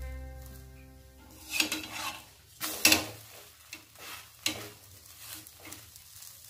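A steel spatula scraping and pressing a roti on a hot oiled iron tawa, with a light sizzle. There are several sharp metal scrapes and clinks, the loudest just before three seconds in.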